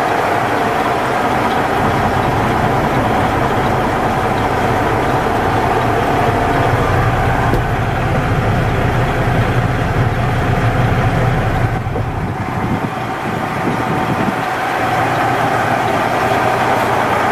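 International DT466 inline-six diesel engine of a Sterling L9500 dump truck idling steadily, with a steady tone running through it. About twelve seconds in, the sound thins and drops for roughly two seconds, then returns.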